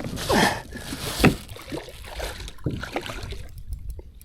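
Water splashing and sloshing beside a kayak as a big channel catfish is hauled in by hand, with a few sharp knocks against the hull, the strongest about a second in.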